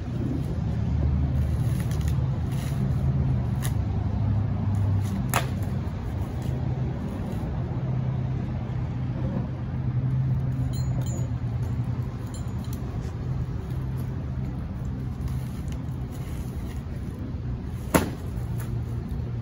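A steady low motor hum, with a few sharp knocks, the loudest one near the end.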